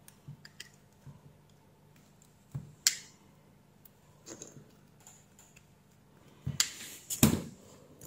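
Needle-nose pliers clicking and tapping on the small metal mounting collars of a USB connector as they are bent straight: scattered light clicks, with a sharper click about three seconds in and a few louder knocks and clicks near the end.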